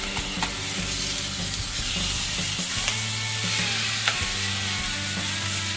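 Rubbed pork steaks sizzling as they sear in olive oil in a hot stainless steel pan. Metal tongs click against the meat and pan a few times as the steaks are turned.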